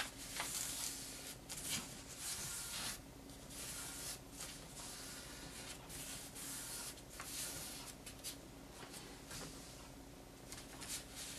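Sheet of folding paper rustling and rubbing under fingertips as a flap is folded and its creases are pressed flat, in irregular scrapes and crinkles that come and go.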